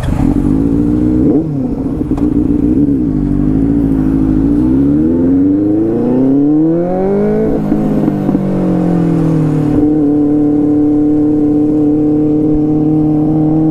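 Benelli 600i inline-four sport bike engine through an SC Project slip-on short-can exhaust, with the stock catalytic converter still in place, heard from the rider's seat. It revs up under throttle, eases off, then pulls up again to a peak about seven seconds in. It then settles to a steady, very loud cruise from about ten seconds on.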